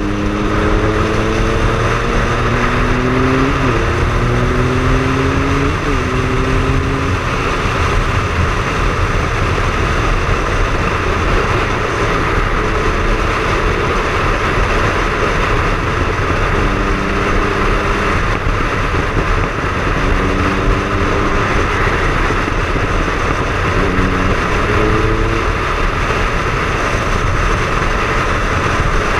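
Triumph Speed Triple's three-cylinder engine accelerating, its pitch climbing and dropping back at two quick upshifts in the first few seconds, under heavy wind rush on the microphone. After that the engine note comes through only in short stretches beneath the steady wind noise of riding at speed.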